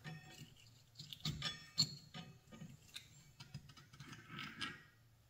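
Faint metallic clinks, knocks and scrapes of a steel washer and top-mount parts being handled and slid off a strut's threaded shaft, one knock with a short ring.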